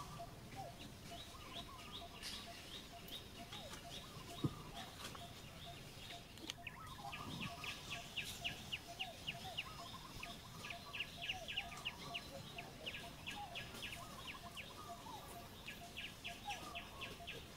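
Birds chirping outdoors: a rapid run of short, high chirps, about four a second, getting busier from about six seconds in, over fainter scattered calls. A single sharp click sounds about four and a half seconds in.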